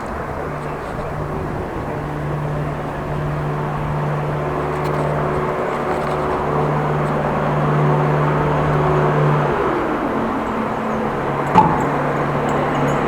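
A motor engine's steady low hum heard over street and riding noise, dropping in pitch about ten seconds in, with one sharp click near the end.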